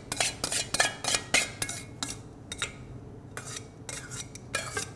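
Metal tongs clinking and scraping against a stainless steel mixing bowl as slaw is lifted out of it: a quick run of clinks for about two seconds, then scattered ones.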